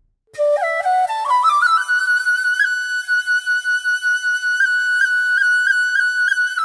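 Background music: a flute melody climbs in quick steps over about two seconds, then holds a high note decorated with short, regularly repeated flicks.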